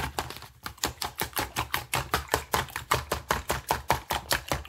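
Fork beating eggs in a bowl for scrambling: a fast, even run of clicks, about seven strokes a second.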